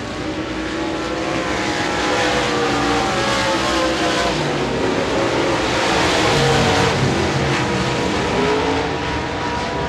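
Several dirt-track modified race cars running hard around the oval, their engine notes rising and falling in pitch as they pass and overlap.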